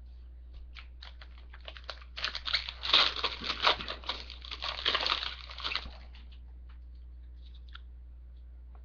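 Foil wrapper of a trading-card pack being torn open and crinkled in the hands, a dense crackle that builds about two seconds in and stops about six seconds in.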